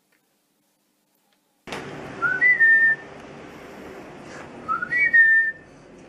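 A person whistling twice, each time a short rising note that jumps up to a longer held note, over a steady low room background.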